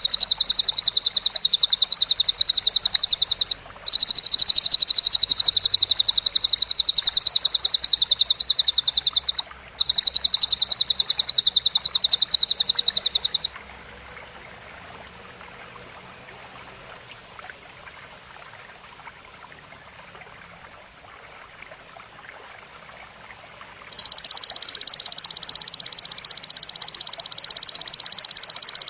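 Masteran recording of cililin and grasshopper material: long, very rapid, high-pitched buzzing trills. There are three long trills with short breaks between them, then about ten seconds of faint background, then another steady trill that starts about two-thirds of the way in and breaks off briefly near the end.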